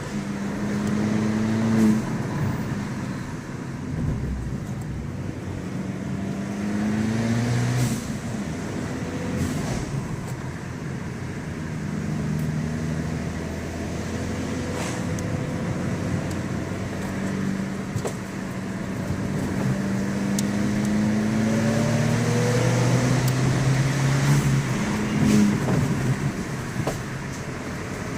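Abarth 595 Pista's turbocharged 1.4-litre four-cylinder on its stock exhaust, accelerating through the gears. The engine note rises in pitch and drops back at each gear change, several times over.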